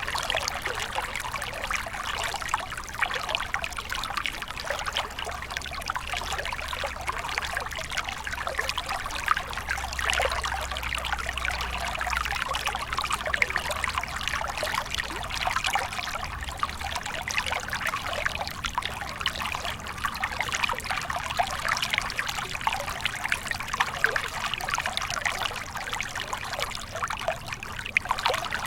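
Small stream flowing and trickling steadily over stones, a continuous babble of water with many small splashes.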